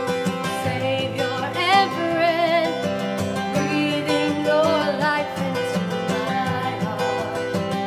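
Acoustic guitar accompanying a woman singing a wavering, vibrato melody. The voice drops out in the last couple of seconds while the guitar keeps playing.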